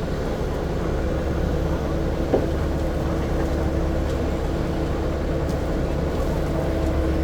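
Kobelco hydraulic excavator's diesel engine running steadily at work, with a single short knock about two seconds in.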